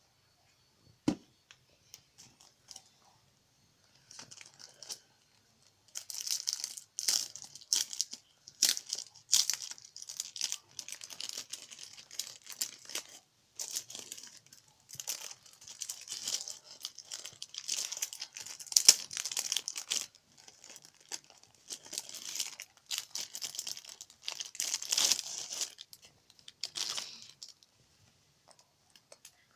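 Plastic wrapping and cardboard packaging being handled: a long stretch of crackly crinkling and rustling from about six seconds in until near the end, after a single tap about a second in.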